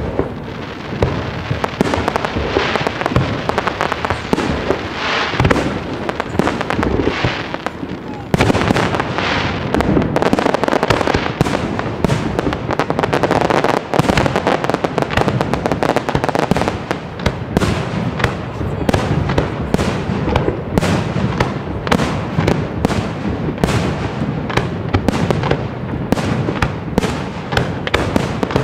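Large professional aerial fireworks display: shells bursting one after another, getting louder about eight seconds in, and turning into a dense crackle of many small, rapid pops in the second half.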